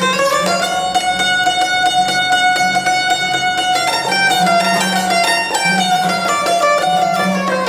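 Background music: a string instrument playing a melody.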